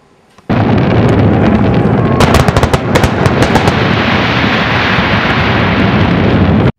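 Fireworks going off: a loud, dense crackling and banging that starts abruptly about half a second in, with a run of sharp cracks around two to three seconds in, and cuts off suddenly near the end.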